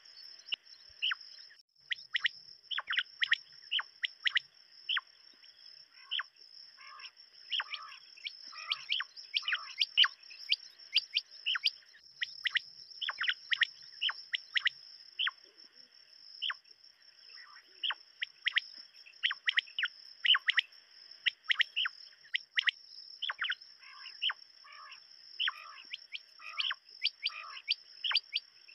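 Quail calling: many short, sharp chirps that fall in pitch, coming irregularly and often overlapping, as from several birds at once. A steady high-pitched tone runs beneath them.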